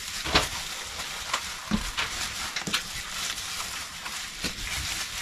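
Plastic packaging being handled: a padded bubble mailer crinkling and rustling, with irregular crackles and clicks as it is folded around DVDs.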